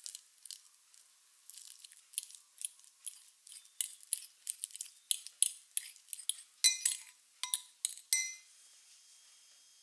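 Metal fork mashing a peeled banana in a glass bowl: a run of irregular clinks and taps of the fork against the glass, coming faster and louder as the mashing goes on, some of them ringing briefly. It stops abruptly about eight seconds in.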